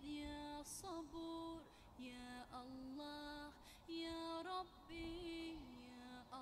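Faint background vocal music: a woman's voice singing a slow melody in long held notes that step up and down in pitch.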